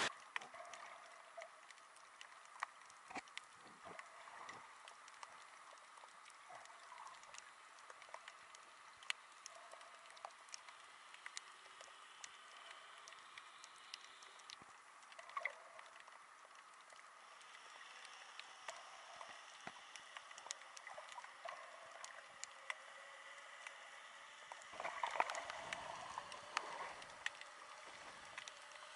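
Faint underwater ambience: a scattered crackle of small clicks and pops over a soft hiss, with a louder stretch of rushing noise and clicks near the end.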